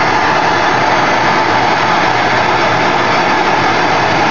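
Hand-held gas torch flame blowing steadily into a melting dish, melting down silver. A loud, even rushing hiss that doesn't change.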